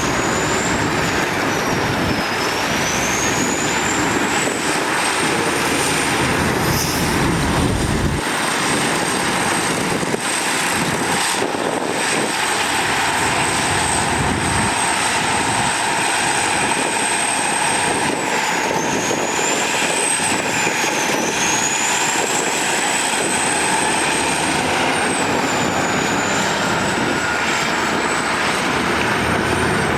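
Heavy diesel earthmoving machinery running steadily under load, with a thin high whine that rises and falls several times over the engine noise.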